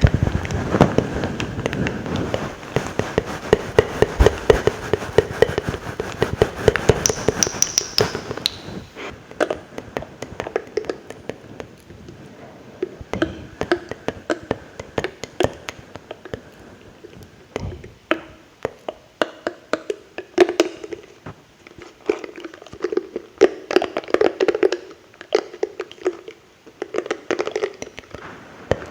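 Close-miked ASMR mouth sounds: rapid wet clicks and smacks, thick and loud for about the first eight seconds, then sparser.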